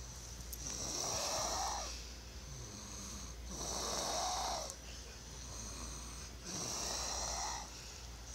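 A one-year-old snoring loudly: three long snores, about one every three seconds.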